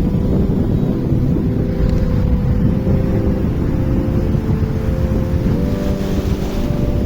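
A motor running steadily, its hum shifting in pitch a few times and rising briefly near the end, with wind rumbling on the microphone.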